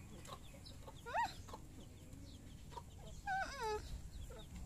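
Hens calling: one short call that rises and falls about a second in, then a longer wavering call that slides down in pitch at about three seconds in.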